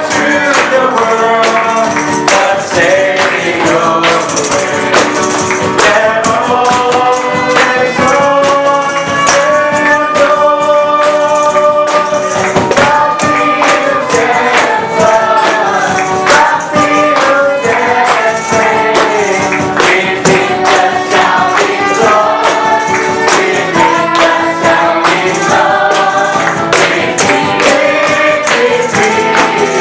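A choir singing with music accompaniment and a tambourine shaking along.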